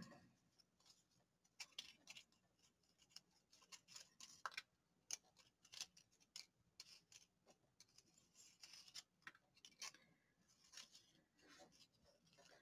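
Near silence, with faint scattered rustles and ticks from small Tim Holtz paper pieces being shuffled and sorted in the hands.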